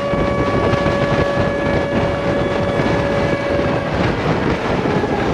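Jet engines of a C-17 Globemaster III running: a loud, steady roar with a steady whine over it that drops away about four seconds in.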